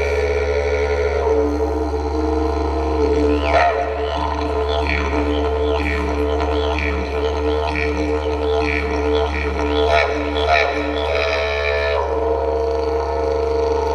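Yidaki (didgeridoo) playing a continuous low drone that never breaks, its overtones sweeping down in a rhythmic pattern about once a second.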